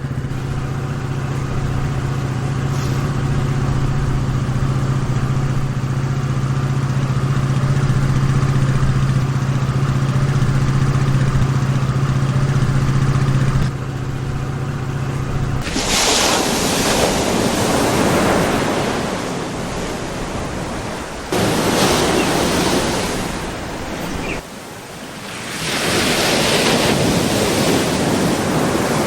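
Scooter engine running steadily at one pitch, which stops about halfway through. Long surges of rushing noise follow, like surf washing in.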